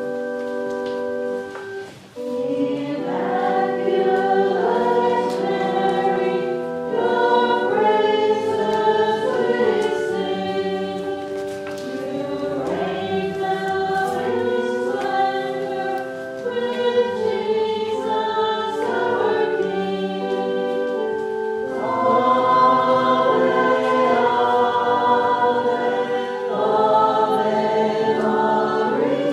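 Choir singing a hymn over held chords, the offertory hymn of the Mass; a held chord opens and breaks off about two seconds in before the singing starts.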